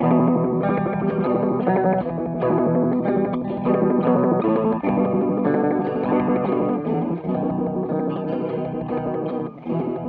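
Electric guitar played through a Subdecay Starlight Flanger V2 pedal into an overdriven tube amp: strummed and picked chords and notes with a flanger sweep on them.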